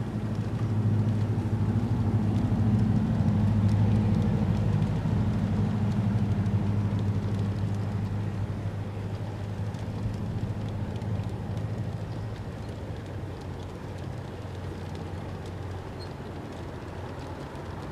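Diesel locomotive rumble of a passing train: a low, steady drone that swells in the first second, stays loud for several seconds, then fades away gradually.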